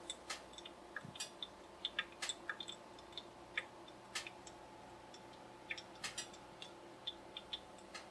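Faint, irregular light clicks and ticks, a dozen or more scattered unevenly, over a faint steady hum.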